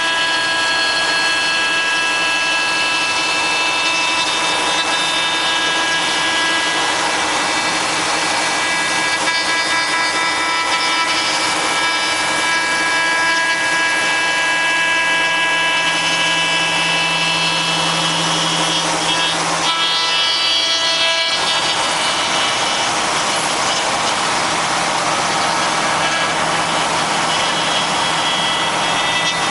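Five-axis CNC router's spindle cutting a wooden carving: a steady machine whine with several held high tones over the rasp of the cutter. The tones drop out briefly about twenty seconds in, then carry on.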